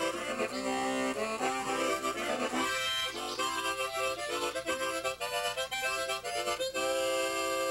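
Diatonic harmonica playing a lively melody of short chorded notes, changing several times a second, then settling on a long held chord near the end.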